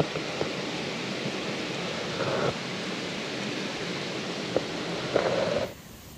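Chef's knife slicing through raw beef on a wooden cutting board, with a few soft knocks of the blade, under a steady rushing hiss that cuts off suddenly near the end.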